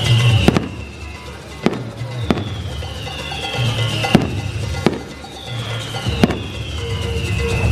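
Fireworks display: a run of sharp bangs, about one every second, over loud background music.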